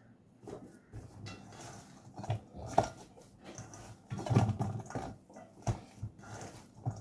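Hands working a raw kibbeh mixture of lamb mince and crushed wheat in a bowl: irregular squelches with a few sharp knocks.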